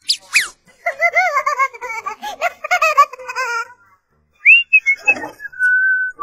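Cartoon whistle sound effects: two quick falling whistle glides, then about three seconds of warbling, wavering squeaky tones, then a rising whistle that levels off into a steady held note near the end.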